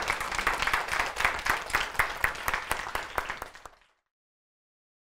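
Audience applauding. The applause fades and cuts off about four seconds in.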